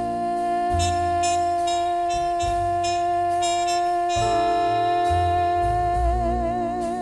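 Closing bars of a slow jazz ballad: one long held note, wavering into vibrato near the end, over sustained band chords.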